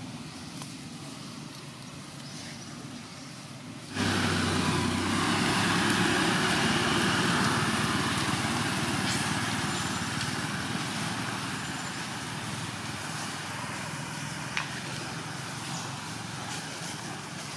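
A motor vehicle engine running, a steady rumble with a hiss over it that jumps louder about four seconds in and then slowly fades.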